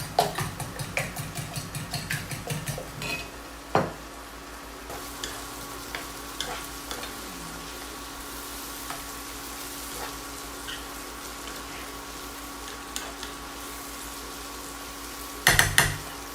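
A fork beating eggs in a bowl, about four quick, even taps a second, for the first three seconds, ending with a knock. After that, green peas fry in olive oil with a steady sizzle and scattered light ticks, and a few loud clatters come near the end.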